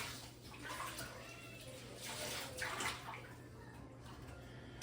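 Tap water running and splashing over dishes being rinsed in a kitchen sink, surging louder at the start and again about two and a half seconds in.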